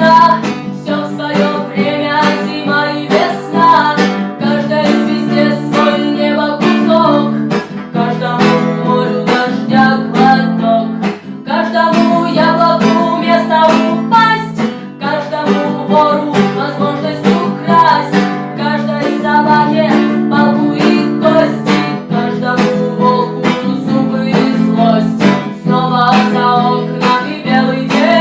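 Acoustic guitar strummed in a steady rhythm, playing chords of a rock song.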